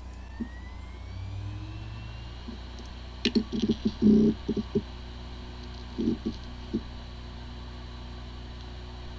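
Hard drive spinning up with a rising whine, then a cluster of ticks about three to five seconds in and a few more around six to seven seconds, over a steady spinning hum. It sounds like a healthy drive, but the drive has disk firmware corruption and the computer cannot detect it.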